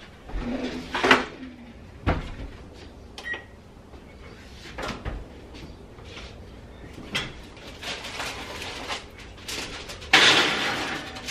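Cupboard doors and kitchen items being handled: a series of scattered knocks and clicks, with a short beep about three seconds in and a louder rush of noise near the end.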